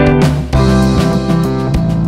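Background instrumental music with sustained notes that change every fraction of a second.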